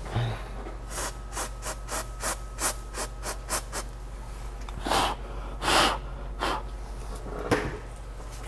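Aerosol freeze spray hissing onto a laptop logic board: a quick run of short squirts, about three a second, then two longer, louder blasts about halfway through. The board is being frosted over so that the shorted spot shows itself by melting the frost first.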